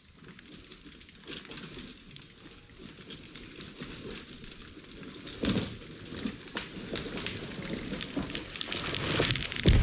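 Wood and branches crackling and snapping, building up in loudness, then a heavy thud near the end.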